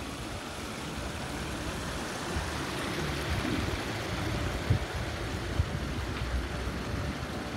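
Steady rushing wash of water flowing over a shallow tiled fountain pool, with an irregular low rumble and a couple of sharp bumps about halfway through.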